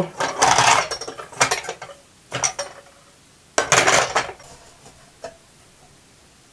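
Half-litre glass jars with lids being set into the autoclave's jar cassette, knocking and clinking against it and each other in several short bursts. The loudest clatter comes about three and a half seconds in.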